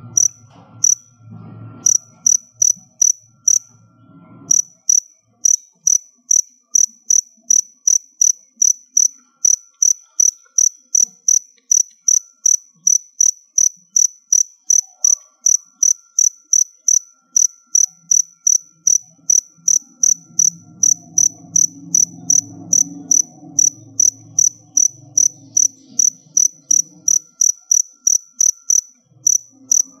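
Male cricket chirping steadily, about two short, high chirps a second. A faint low rumble lies underneath near the start and again in the second half.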